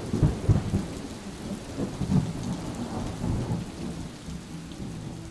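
Thunderstorm sound effect: heavy rolls of thunder over steady rain, with the rumbles dying away towards the end.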